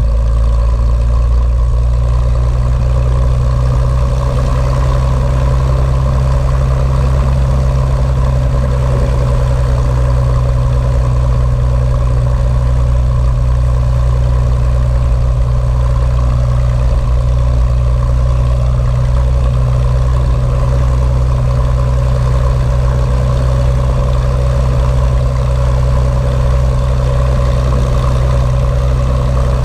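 Cessna 182's piston engine and propeller running steadily at low taxi power as the plane rolls along a grass strip.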